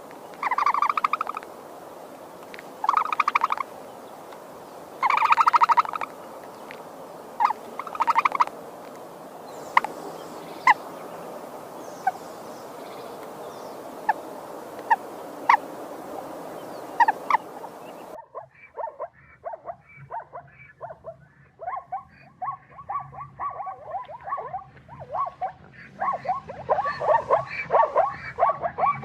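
Wild animal calls: several short buzzy, trilling calls and single sharp chirps, then about two-thirds of the way through a switch to rapid, repeated chattering calls.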